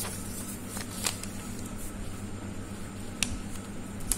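A steady low hum, with a few short faint clicks about one, three and four seconds in.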